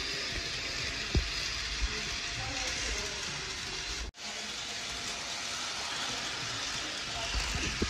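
HO scale GP40-2R model locomotive and cars running on plastic-roadbed sectional track, a steady whirring hiss of motor and wheels. A few low bumps and a short sudden break about four seconds in.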